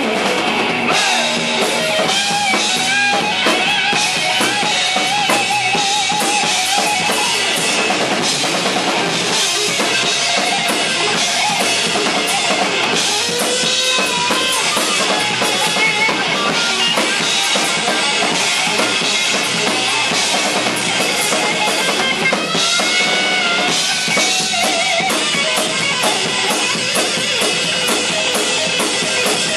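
Live rock band playing loudly: electric guitars, bass guitar and a drum kit driving a steady beat.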